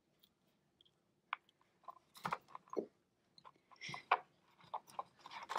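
Quiet handling of oven-bake polymer clay: soft squishing as the clay is folded, then a scattered run of light clicks and knocks as a glass baking dish is set on it and pressed down against the board.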